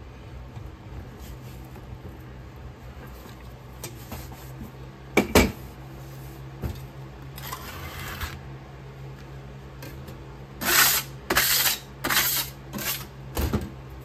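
Sand-mould work on a steel table: two sharp knocks about five seconds in, then a short scrape as a metal putty knife strikes the excess casting sand off the flask. Near the end comes a run of about five sharp metal clanks on the steel table.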